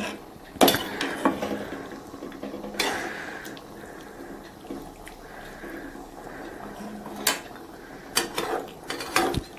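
A spoon knocking and scraping against a cooking pot as chicken pieces are mixed into thick masala, with irregular clinks a few seconds apart.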